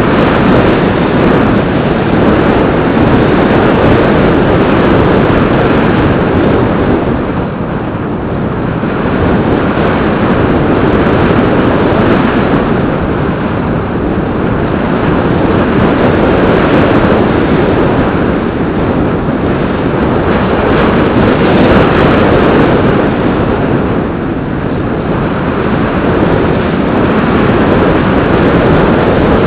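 Loud, steady rush of wind over the onboard camera of a Bixler 2 RC model plane in flight, swelling and easing every several seconds.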